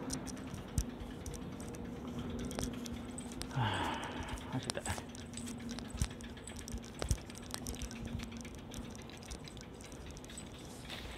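Muffled handling noise from a covered camera: cloth rubbing over the microphone, with scattered clicks and knocks and one short scraping rustle about four seconds in.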